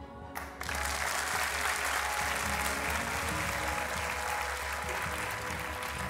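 Studio audience applauding, breaking out suddenly about half a second in and holding steady, over quiet background music.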